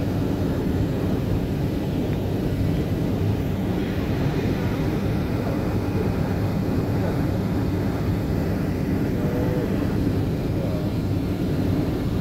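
Car driving steadily at speed on an asphalt highway: a constant low rumble of road and engine noise that stays even throughout.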